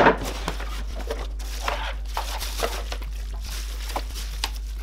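Plastic packaging and bubble wrap crinkling and rustling in irregular bursts as parts are lifted out of a cardboard box. A single knock at the very start is the loudest sound.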